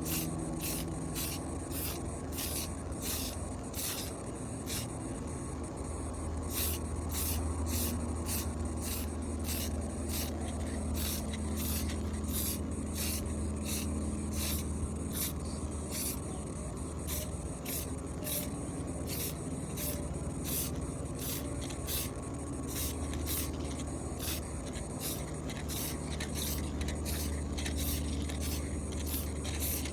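Hand sanding of a patched spot on a loudspeaker cabinet: short, even back-and-forth rubbing strokes, about two a second, over a steady low hum.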